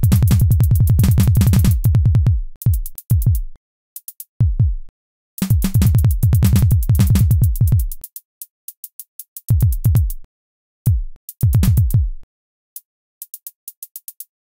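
Electronic drum-machine music: very rapid stuttering hits over heavy bass, in bursts that cut off suddenly into short silences, with runs of faint quick ticks between some of them and near the end.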